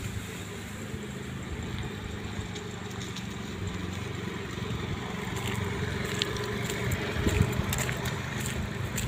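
A steady engine hum, like a motor vehicle idling, growing a little louder in the second half.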